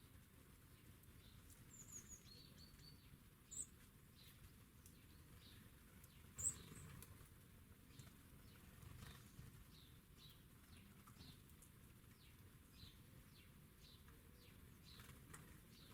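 Faint, high chirps and call notes of small garden songbirds, many short falling notes scattered throughout, with two louder sharp chirps, one about three and a half seconds in and one about six and a half seconds in.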